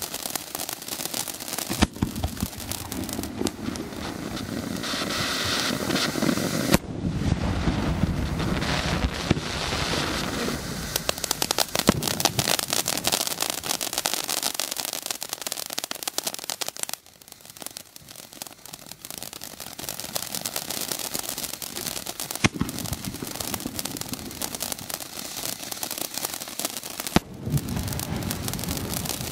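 Dominator DM212F5 'Xmas in July' ground fireworks fountain spraying sparks: a continuous hissing rush full of fast crackling, with a few sharper pops scattered through. It dies down briefly a little past halfway, then builds again.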